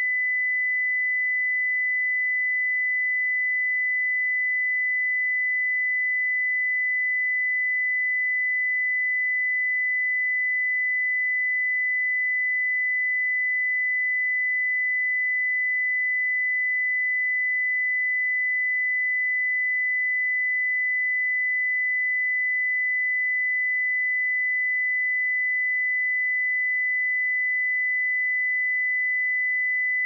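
A steady, unbroken 2002 Hz sine-wave test tone: one pure high-pitched note at constant level.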